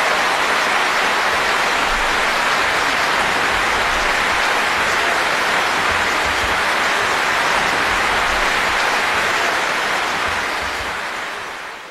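A large concert audience applauding, a steady dense clapping that fades out near the end.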